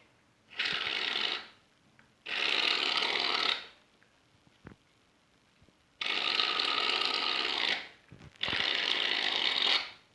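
Aerosol can of shaving foam spraying in four hissing bursts of one to two seconds each, with short pauses between.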